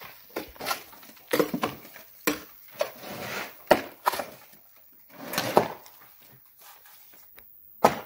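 Irregular knocks, clatter and scraping of hand demolition work: tools striking and prying at a wall's facade cladding and plaster, with pieces breaking off.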